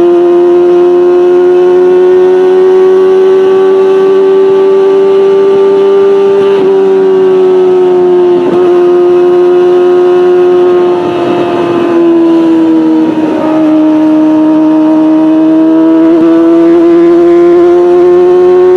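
Kawasaki Ninja ZX-25R's 250 cc inline-four running steadily at high revs through a Beet Nassert R Evolution exhaust with no catalytic converter, a loud high-pitched howl. The pitch sags a little about two-thirds through, then climbs back near the end.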